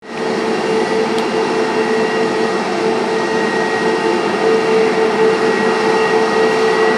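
Airbus A350-900's Rolls-Royce Trent XWB jet engines running at taxi power: a steady rushing noise with a steady hum and a thinner high whine over it.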